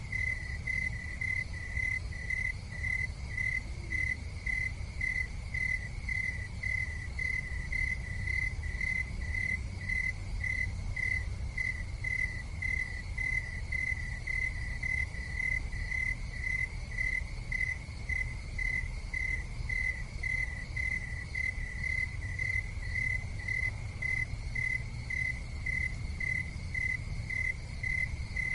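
A cricket chirping steadily, a high even note repeated about twice a second, over a low continuous rumble.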